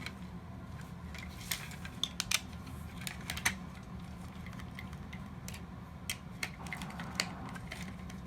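Scattered light clicks and taps of plastic toy-robot parts being handled and pried apart during disassembly, over a steady low background hum.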